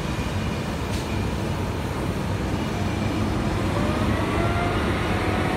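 SNCF BB 22200-class electric locomotive moving along the platform with a steady heavy rumble. From about three and a half seconds in, a whine rises in pitch over the rumble.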